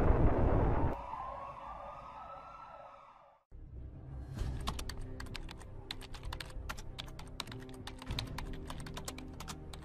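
Loud rumbling explosion noise that cuts off about a second in, leaving a faint rising tone that fades to silence. Then rapid computer-keyboard typing, fast irregular key clicks, over low steady background music.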